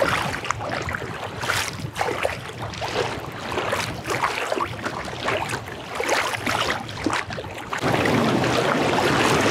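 Choppy water lapping and splashing irregularly against a kayak's plastic hull, with wind buffeting the microphone. About eight seconds in the sound changes abruptly to a steadier, louder rush of water and wind.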